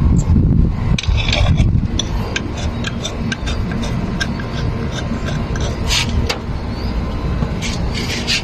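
A run of sharp, evenly spaced clicks, about three a second, over a steady low rumble.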